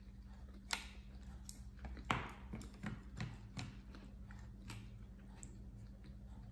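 Close-up chewing of a bite of vegan sushi: soft, irregular wet mouth clicks, with two sharper clicks about a second and two seconds in, the second the loudest.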